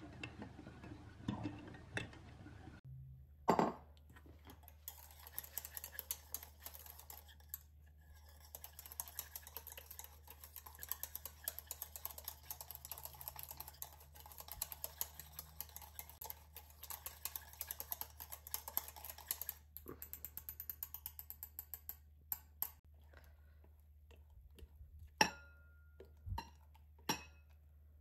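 Whisk wires clicking rapidly against a stainless steel saucepan as thickened egg-yolk custard cream is stirred. Near the end, a few separate sharper knocks of the pan and utensil against a glass bowl, one with a short ring.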